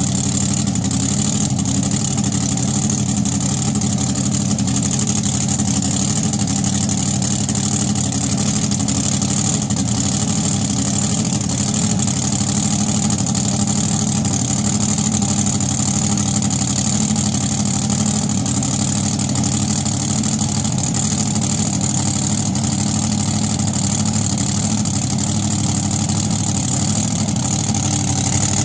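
An engine idling steadily at an unchanging pitch, with a steady high hiss over it.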